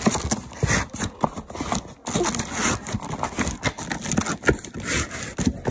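Packaging being handled: plastic wrap and cardboard rustling and crinkling, with irregular clicks, knocks and scrapes.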